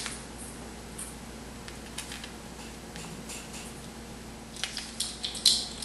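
Paprika being measured out of a plastic bag with a measuring spoon into a stainless steel bowl: soft rustles and light clicks, with a few louder crinkling scrapes near the end.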